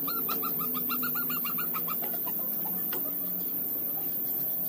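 A bird singing: a quick run of short, evenly repeated notes, about seven a second, that stops about two seconds in. A few faint notes and light clicks follow.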